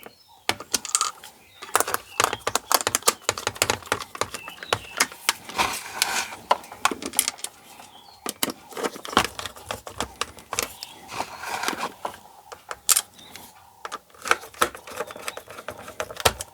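Many quick, irregular clicks and small rattles of a blood pressure monitor's plastic casing and small parts being handled and fitted back together.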